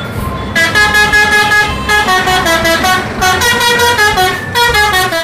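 An Indonesian bus's multi-tone musical air horn (a 'telolet' horn) playing a quick tune of stepped notes. It starts about half a second in and sounds in several short phrases.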